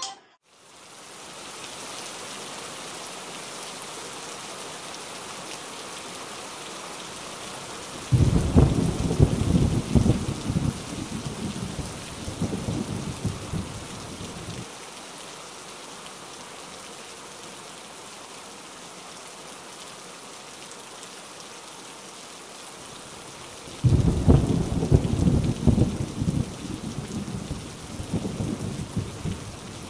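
Steady rain, with thunder rolling twice: a rumble starts suddenly about eight seconds in and another near the end, each lasting several seconds.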